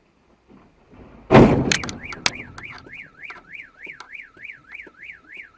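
A loud thud with a few sharp cracks as a light box truck bumps into the parked car, then a car alarm sets off a rapid rising-and-falling warble, about three cycles a second, triggered by the knock.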